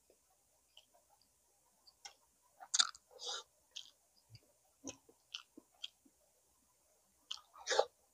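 Close-miked chewing and mouth smacking of a person eating boiled pig's tail. It comes as scattered short clicks and smacks, the loudest about three seconds in and near the end.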